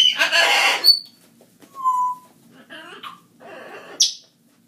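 Animal calls: a harsh cry lasting about a second, a short steady whistle about two seconds in, two rougher calls, then a sharp high squeak near the end.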